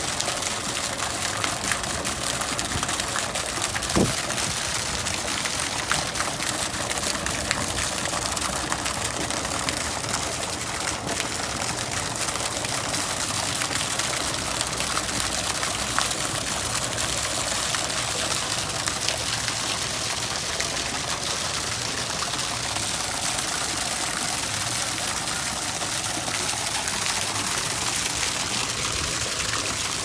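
Arcing jets of a water fountain splashing steadily into a shallow tiled pool, a constant splashing hiss, with a brief click about four seconds in.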